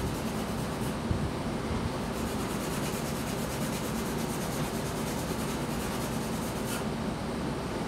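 A 2H graphite pencil rubbing across drawing paper in shading strokes, over a steady low hum.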